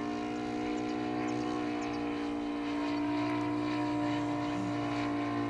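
ASP FS400AR five-cylinder four-stroke glow radial engine of a large RC Mitsubishi A6M Zero model running steadily in flight, holding a nearly constant pitch.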